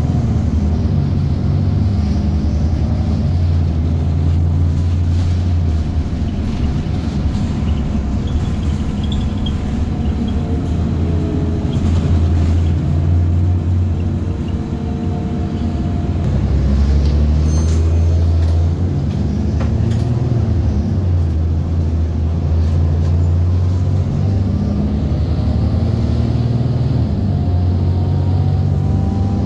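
BredaMenarinibus M240LS city bus heard from inside the passenger cabin while driving: the engine running under load, its note rising and falling with speed, with whines gliding up as it accelerates. The engine eases off about halfway through, then pulls hard again a couple of seconds later.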